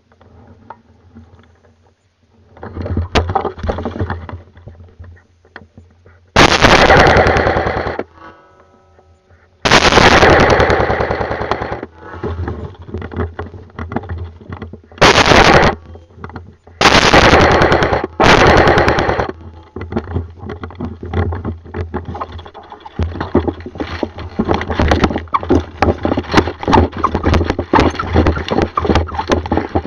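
Airsoft guns firing full-auto: several long bursts of rapid shots, the loudest about six and ten seconds in and three more shortly after, then a steady rattle of fainter, shorter bursts through the last third.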